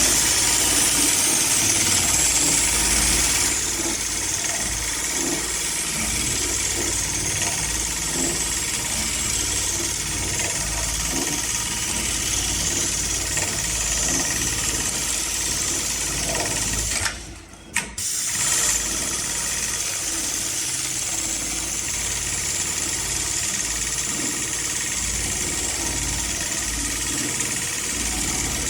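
HighTex MLK500-2516 industrial sewing machine running steadily while stitching ratchet-strap webbing, a continuous mechanical hum with a steady hiss over it. The sound drops out for about a second a little past halfway, then carries on as before.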